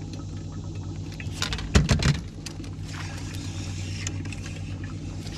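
Knocks and thumps on a fishing boat over a steady low hum. The knocks come in a short cluster about two seconds in and are the loudest part.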